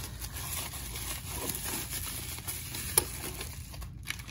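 Bubble wrap and plastic packaging crinkling and rustling as it is handled, with one sharp click about three seconds in.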